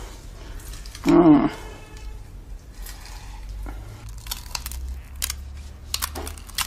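Metal potato ricer pressing boiled potatoes into a saucepan: a brief pitched sound about a second in, then a few faint light clicks and taps.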